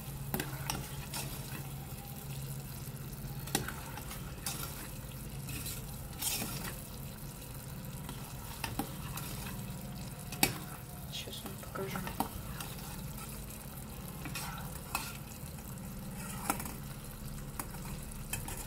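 Thick sugar syrup boiling and bubbling in a small stainless steel pot on a gas burner, being cooked down to the thread stage. A metal spoon stirs and dips in it, tapping and clicking against the pot at irregular moments, over a steady low hum.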